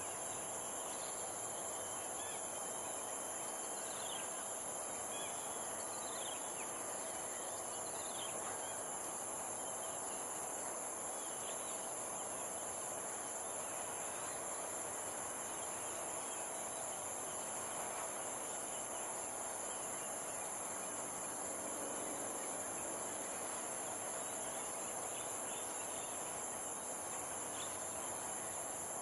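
Insects droning steadily at a high, shrill pitch, in two even bands. Faint short bird chirps come and go over it, mostly in the first few seconds and near the end.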